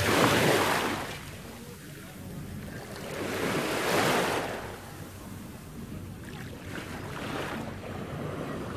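Sea waves washing in, swelling and fading about every three to four seconds.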